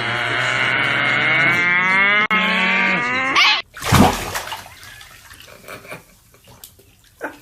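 A long, wavering animal cry lasting about three and a half seconds and ending in a rising glide, then a loud thump about four seconds in, followed by quieter splashy water sounds.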